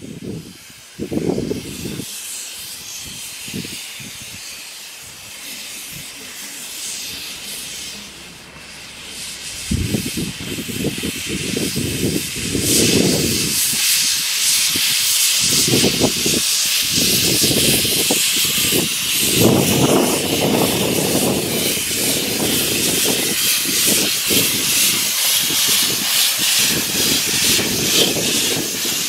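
Small Hunslet quarry saddle-tank steam locomotive Alice getting under way with its cylinder drain cocks open: a loud steady steam hiss that grows louder about a third of the way in, with low exhaust beats about every second or two underneath.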